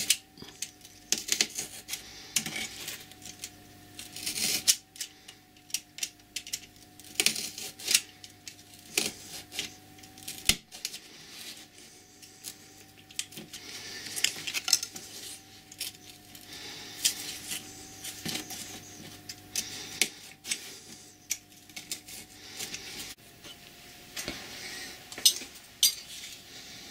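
Knife blade cutting a piece of hard felt on a hard worktop: irregular scraping strokes and sharp clicks as the blade draws through the felt and taps the surface.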